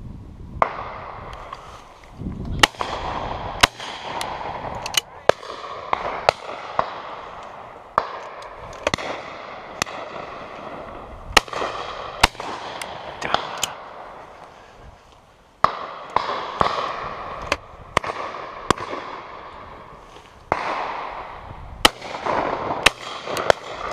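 Shotguns firing along a line of guns on a driven pheasant shoot: an irregular run of about twenty shots, a few close and loud, most more distant, each trailing an echo.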